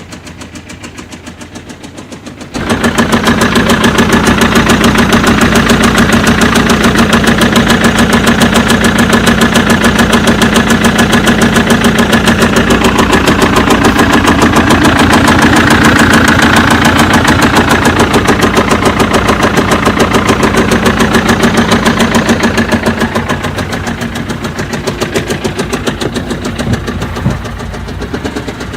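BMW 1 Series 2-litre diesel engine running with a rapid, even tapping ('tap tap tap'), the abnormal engine noise being diagnosed. It becomes much louder about two and a half seconds in and eases off somewhat near the end.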